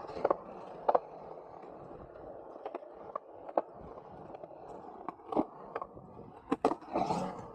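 Skateboard wheels rolling with a steady rumble, broken by several sharp clacks of the board, a few close together near the end along with a brief louder surge of rolling.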